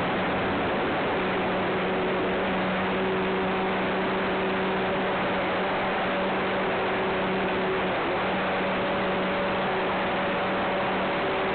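Cessna 182's engine and propeller running steadily, an even loud drone with a constant low hum through it.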